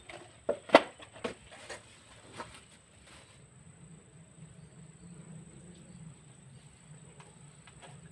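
Yard work by hand: a handful of sharp snaps and knocks in the first three seconds as plants and debris are pulled and handled, the loudest about a second in. Then a quieter stretch with a steady low hum and a thin high tone in the background.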